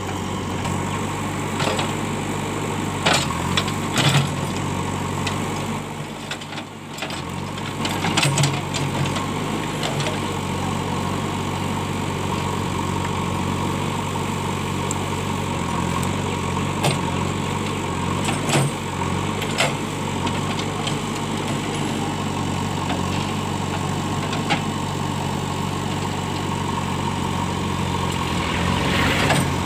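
JCB 3DX backhoe loader's diesel engine running steadily under load while the backhoe digs through brush, with a few sharp clanks and knocks from the bucket and arm. The engine sound dips briefly about six seconds in.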